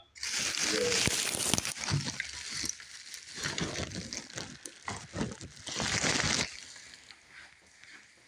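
Rustling and rubbing noise from a phone being handled and carried while it records. A loud scraping rustle runs for the first second and a half, then softer rustles and a few knocks, and a second loud rustle comes around six seconds in.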